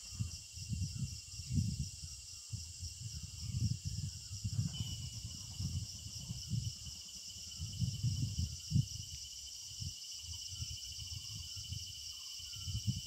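Steady chorus of insects, a pulsing high trill, with irregular low buffeting on the microphone and faint short chirps.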